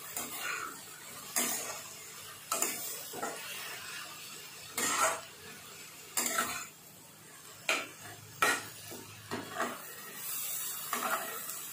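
A spatula stirring chopped vegetables frying in a nonstick kadai, with a scrape or knock against the pan roughly once a second over a light sizzle.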